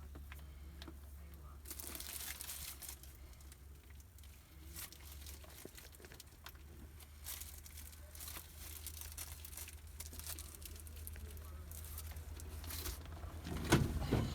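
Plastic crinkling and rustling in short bursts as wiring is handled and bundled, with a few sharp clicks near the end and a steady low hum underneath.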